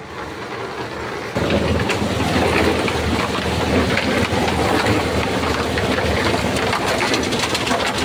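A small engine running steadily with a rattling clatter, getting louder about a second and a half in.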